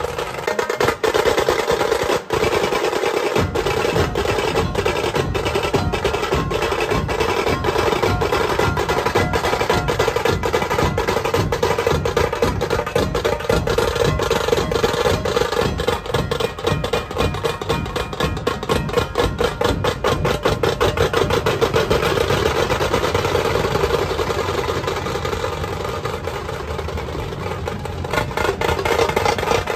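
Dhol tasha ensemble drumming: big dhol drums beating under fast, continuous tasha rolls, dense and loud, easing a little toward the end before picking up again.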